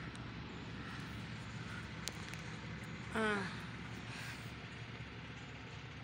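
Steady low background hum, with a sharp click about two seconds in and a short voice sound falling in pitch just after three seconds.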